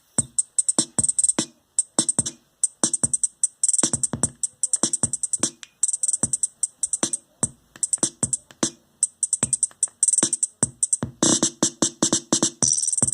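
Electronic music with a fast, choppy drum-machine beat of short sharp hits, played on a Skullcandy Barricade Mini portable Bluetooth speaker as a sound test.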